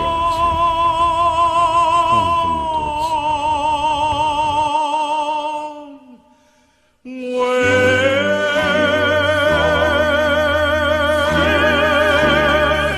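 A slow song sung in an operatic style: a voice holds a long note with strong vibrato that fades out about six seconds in, then after about a second of quiet the singing starts again over an accompaniment with steady low bass notes.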